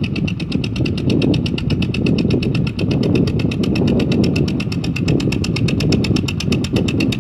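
Motorboat engine running steadily, with a fast, even clatter of about ten beats a second over a dense low drone.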